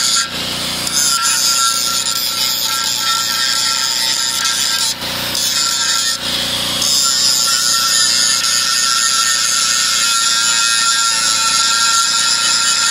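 Angle grinder running steadily with its disc ground against a square steel tube, throwing sparks. The sound dips briefly three times, once just after the start and twice around the middle.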